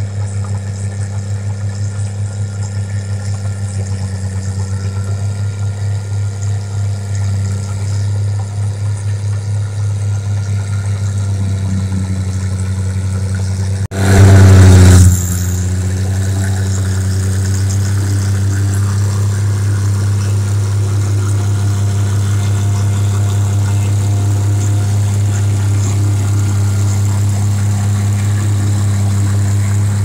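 Engine of a tracked paddy-field machine running steadily, a low throbbing hum. About halfway through it surges much louder for about a second, then settles back to the same steady running.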